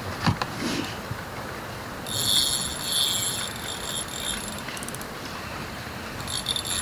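Small spinning reel being cranked, a high mechanical whir of its gears as line is wound in. It comes in two bouts, a longer one about two seconds in and a shorter one near the end, after a single click at the start.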